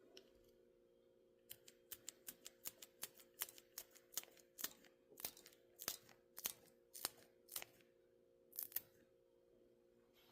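A blade cutting with a run of sharp clicking strokes, about two a second, starting after a second and a half and stopping near the end, over a faint steady hum.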